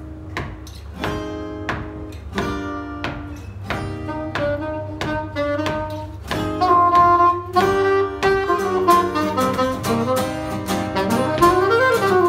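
Live acoustic guitar strumming chords in a steady rhythm, joined about halfway through by a saxophone playing a melody that bends and slides in pitch near the end.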